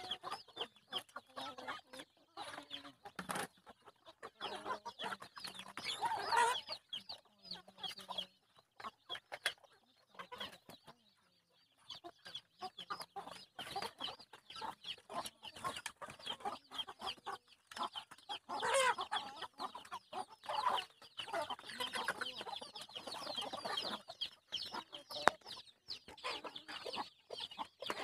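A flock of black-meat chickens clucking softly while they feed, with many short taps of beaks pecking at the grain and the feed sacks. The clucking comes and goes, with a short lull near the middle.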